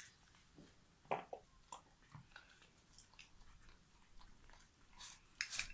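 Faint, scattered sticky clicks and squelches of hands working slime, with a quick cluster of louder clicks near the end.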